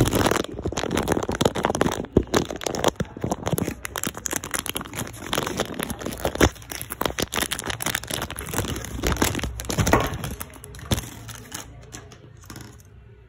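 Close, irregular crinkling and rubbing with many sharp crackles right against the phone's microphone, handling noise while the lens is covered; it dies away near the end.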